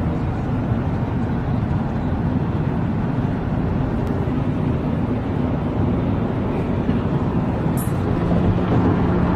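Steady road and engine noise heard from inside a car driving on a freeway.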